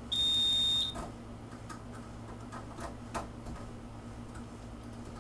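A fire alarm control panel's piezo beeper sounds one short, steady, high-pitched beep, a trouble signal from the panel while its circuits are being rewired. A few light clicks follow.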